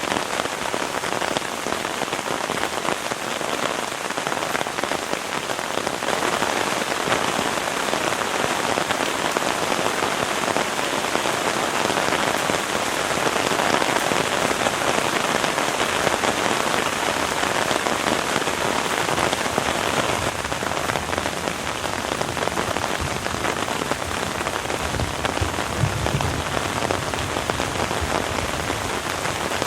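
Heavy rain falling steadily, a dense even hiss of drops, with a few soft low thumps near the end.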